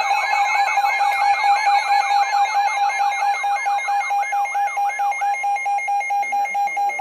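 Emergency Alert System attention signal sounding ahead of a new alert. A steady alarm tone has a fast, repeating warbling sweep over it for about the first five seconds; the steady tone then pulses on alone and cuts off suddenly at the end.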